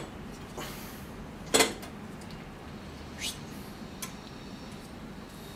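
A few sharp metallic clicks and clinks as a bowstring serving jig is handled against the metal string jig. The loudest is a quick double click about a second and a half in, with lighter ones near the start and a little after three and four seconds.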